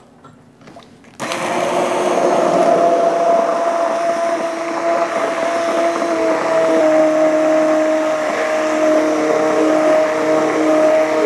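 Immersion blender starting about a second in and running steadily with a whine, its blade pureeing a sauce in a glass measuring cup. Its pitch dips slightly about halfway through.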